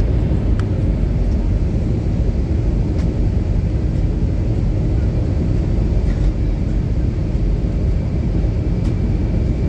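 Steady low roar inside a passenger airliner's cabin in flight: engine noise and rushing air, with a few faint ticks.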